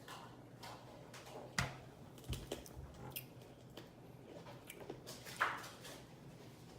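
Faint close-miked mouth sounds: scattered soft clicks and smacks, with a louder short breathy puff a little after five seconds.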